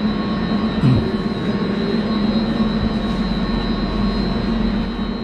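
Steady drone of plant-room machinery, with a low hum and a thin, constant high whine over it. There is a brief bump about a second in.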